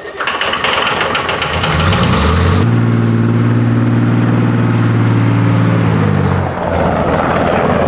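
Explosion-proof tugger's Chrysler-Nissan diesel engine revving. Its pitch climbs over about a second, holds steady for several seconds, then drops back near the end.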